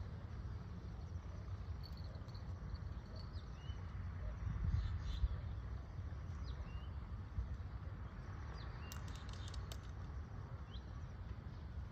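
Birds chirping in short, scattered calls, with a quick run of sharp clicking notes about nine seconds in, over a steady low rumble.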